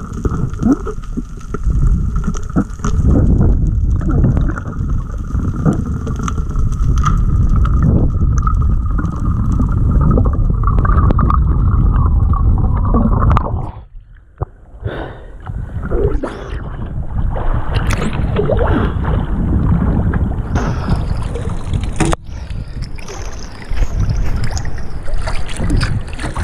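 Water noise from an action camera in and at the sea: a muffled, rumbling underwater wash for about the first half. After a short drop in level about halfway, it turns to lapping and splashing at the surface.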